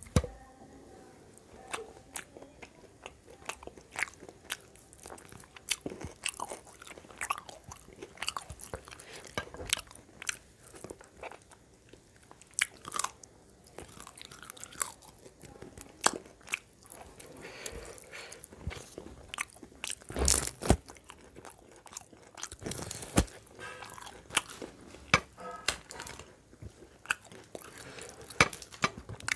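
Close-miked eating by mouth: irregular crisp crunches and wet chewing as crunchy food and curry with rice are bitten and chewed, a few louder crunches standing out.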